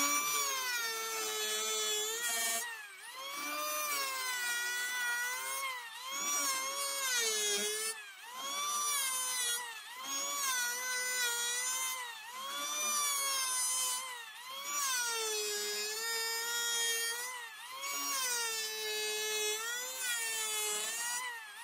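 Handheld electric planer running across end-grain stump wood, its motor whine sagging in pitch and easing off every two to three seconds as each pass loads the cutter and ends.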